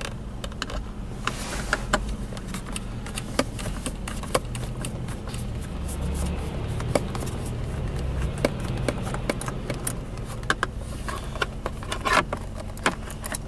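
Phillips screw being unscrewed by hand inside a plastic dashboard pocket: irregular small clicks and light scrapes of the screwdriver and screw against the plastic, with a few louder clicks near the end, over a low steady hum.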